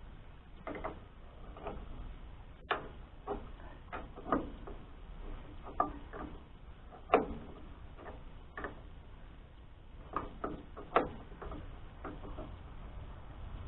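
Irregular metal clicks and knocks, a dozen or so spread unevenly, from hand tools working the sawmill's belt-tension turnbuckle. The sharpest knocks come about seven and eleven seconds in.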